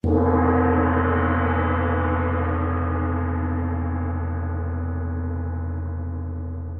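A gong struck once, then ringing on with a deep hum and a slow fade, its higher overtones dying away first.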